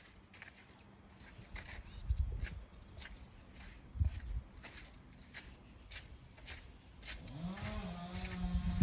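Footsteps along a woodland path with small birds chirping and whistling. Near the end a cow moos once, a single long call of about two seconds.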